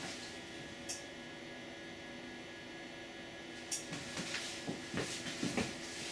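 Steady electrical hum with several held tones in it. Two sharp clicks break it, about a second in and near four seconds, and a few faint taps follow near the end.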